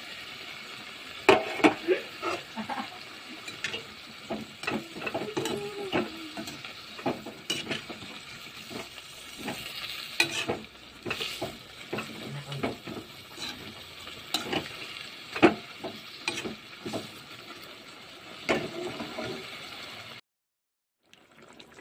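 Fried chicken pieces stirred in a sizzling wok of capsicum and onion masala: a steady sizzle with repeated scrapes and clacks of the spatula against the pan. The sound drops out for about a second near the end.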